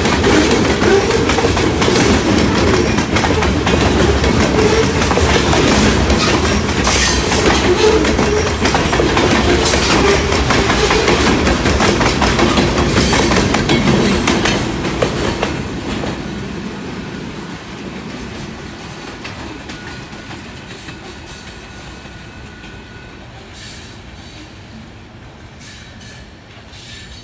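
Loaded grain train's cars rolling past, with a heavy rumble and wheels clattering over rail joints. About halfway through, the sound fades steadily as the train moves away. A faint thin wheel squeal comes in later.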